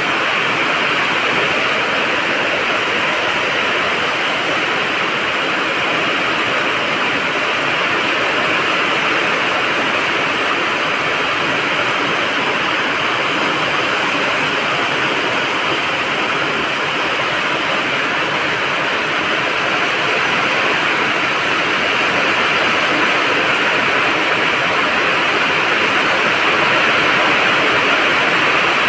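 Heavy rain falling steadily, a dense even hiss that grows slightly louder near the end.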